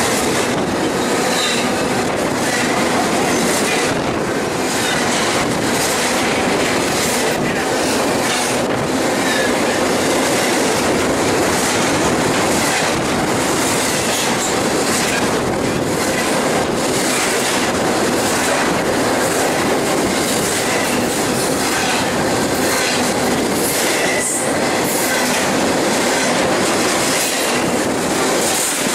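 A BNSF double-stack container freight train rolling past at close range: the steady, loud rumble and clatter of steel wheels on the rails as the cars go by, without a break.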